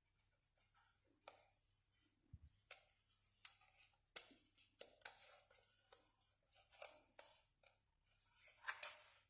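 Faint handling noises: scattered clicks and rustles, with a sharp click about four seconds in and a denser patch of rustling near the end.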